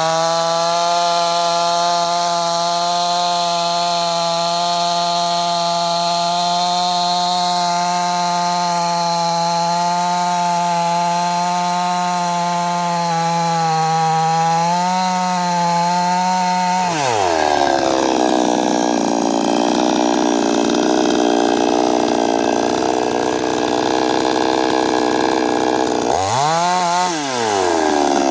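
55 cc two-stroke petrol chainsaw running at high revs with a steady note. About two-thirds of the way through the throttle is let go and the pitch falls quickly to a low idle. Near the end there is one quick rev up and back down.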